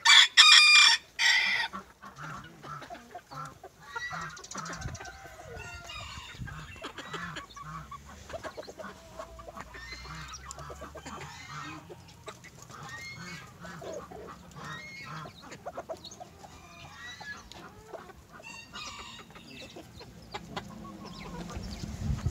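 A small flock of chickens, Silkies among them, clucking and chattering in short calls, with two loud calls right at the start.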